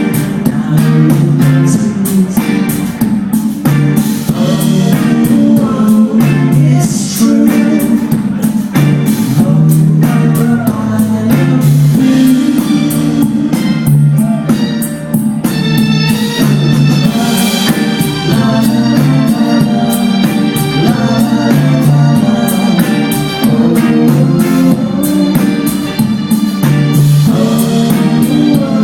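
Live rock band playing loudly, with singing, guitars and a steady drum-kit beat.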